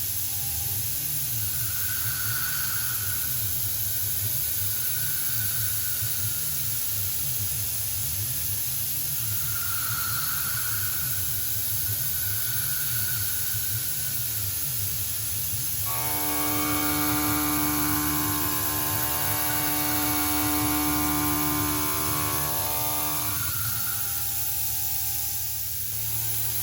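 CNC milling machine cutting, a steady hum and hiss of the spindle and cut, with a steady pitched cutting whine that sets in about two-thirds of the way through and stops a few seconds before the end.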